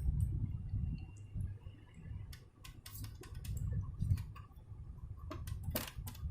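Scattered small clicks and ticks of hand work on a cassette deck mechanism while its small rubber drive belt is being seated, over a low rumble. The clicks come mostly in the second half.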